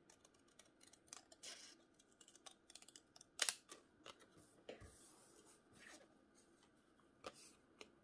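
Scissors snipping through paper: a series of short, irregular snips, the loudest about three and a half seconds in.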